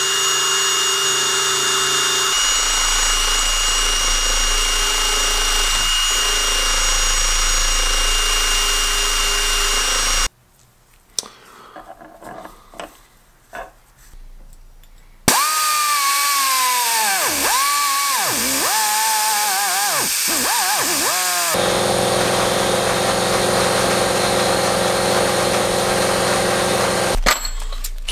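Cordless drill spinning a small wire wheel against corroded brake caliper parts held in a vise, scrubbing the corrosion off. The drill runs steadily, stops for about five seconds with a few small knocks, then runs again with its speed dipping and rising several times as the trigger is eased, before settling back to a steady whine.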